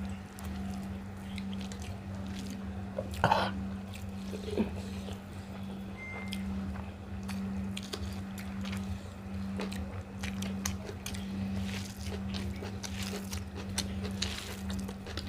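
Two people chewing and eating rice and egg curry: scattered small wet mouth smacks and clicks, with a couple of louder ones about three and four and a half seconds in, over a steady low hum.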